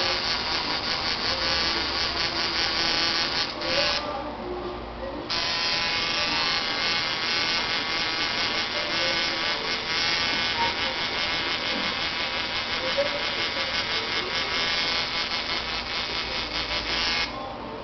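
Electric tattoo machine buzzing as it runs. It pauses briefly about four seconds in, starts again, and stops just before the end.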